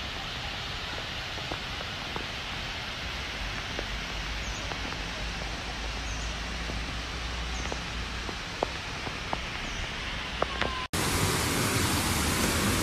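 Steady rushing of a forest stream, with a few faint, short, high chirps and small clicks. About eleven seconds in it cuts abruptly to a louder, brighter rushing noise.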